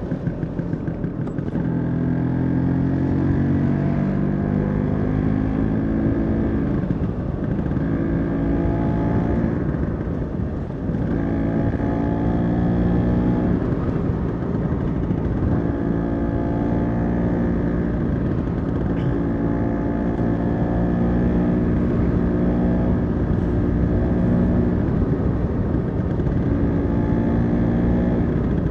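Vespa scooter engine running under way, its note swelling and easing every few seconds as the throttle is worked, over steady wind and road noise.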